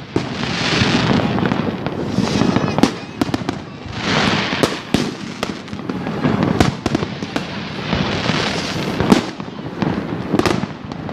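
New Year's fireworks going off in a continuous barrage: many sharp overlapping bangs and pops, with swells of dense crackling between them.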